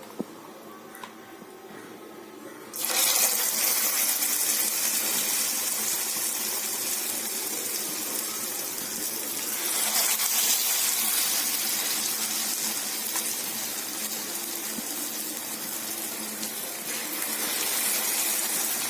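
Hot oil in a frying pan sizzling as grated-potato hash brown patties are laid in, starting suddenly about three seconds in and then running steadily, swelling a little around ten seconds in.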